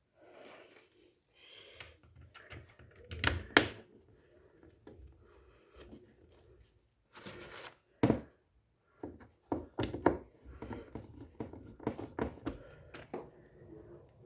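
Knocks, clicks and rattling of washing-machine parts being handled and fitted by hand as the gearbox goes back into place, with two sharper knocks about three and a half and eight seconds in.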